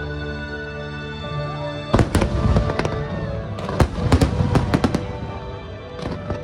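Aerial fireworks bursting over music played through loudspeakers: a dense volley of sharp bangs and crackles from about two seconds in to about five seconds, with a few more bangs near the end.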